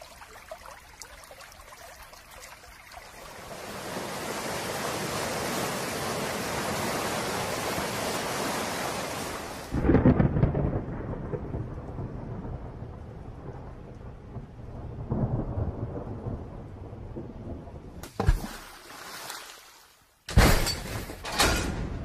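Thunderstorm sound effect: rain building into a steady hiss, then a loud thunderclap about ten seconds in that rumbles on for several seconds. Near the end comes a sharp crack, a short gap, and then loud sharp crashes.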